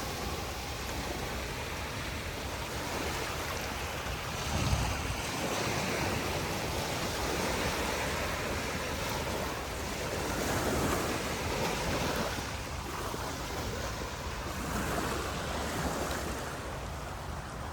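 Sea waves breaking and washing up a sandy beach, swelling and easing every few seconds, with wind on the microphone.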